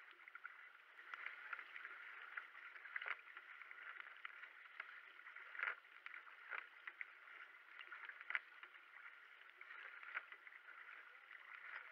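Racing kayak under way: paddle blades catching and leaving the water about once a second, over a steady wash of water along the hull, heard muffled.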